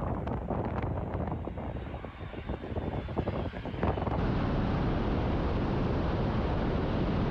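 Ground-attack jet aircraft flying low, a loud, steady jet rumble with wind crackling on the microphone. About four seconds in it turns into a smoother, steady rush.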